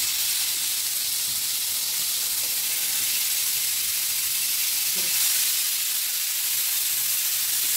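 Marinated chicken tikka on skewers sizzling steadily in hot mustard oil in a flat pan as the skewers are laid in.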